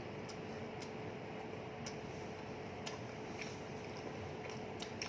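Irregular soft clicks and smacks of people chewing homemade veg pizza, over a steady faint hum.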